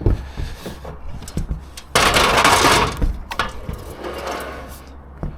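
Equipment being handled, with scattered knocks and clatters and one loud scraping rush lasting about a second, about two seconds in.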